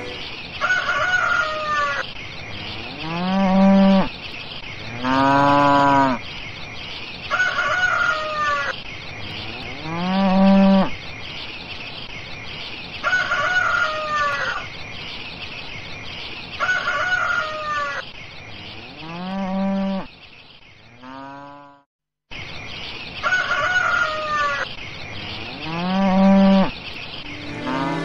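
Repeated animal calls, each about a second long, come roughly every three seconds. Some rise in pitch and some arch up and down, over a steady high chirping background. The sound cuts out briefly about three-quarters of the way in.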